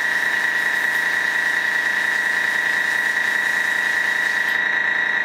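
A piston-type airbrush compressor with an air tank runs steadily to refill its tank after the pressure has dropped, giving a steady hum with a high whine. An airy hiss over it stops about four and a half seconds in.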